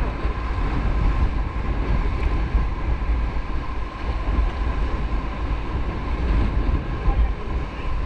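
River rapids rushing around an inflatable raft, heard as a steady, dense roar of whitewater, with wind buffeting the microphone and a heavy low rumble.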